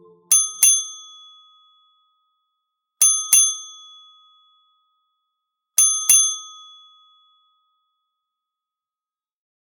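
A small bell dinging twice in quick succession, three times over about three seconds apart, each double ding ringing out and fading away.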